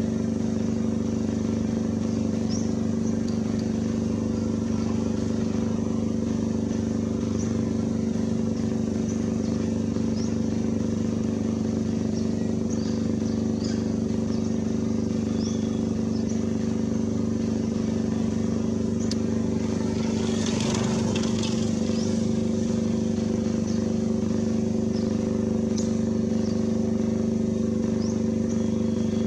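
A steady engine-like drone holding several fixed pitches, with faint short high chirps scattered throughout and a brief hiss a little past two-thirds of the way in.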